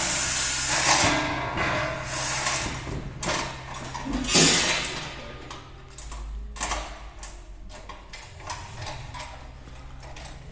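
Motorcycle crate and packaging being worked loose by hand: several loud scraping, rustling bursts in the first five seconds, then lighter clicks and knocks.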